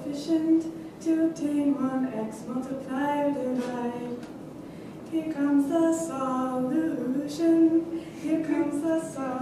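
A woman singing solo and unaccompanied, a cappella, in phrases of held notes with short breaths between them.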